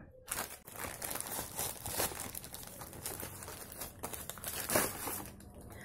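Plastic shipping package being handled and torn open by hand: continuous crinkling with a couple of louder rips, about two seconds in and near the end.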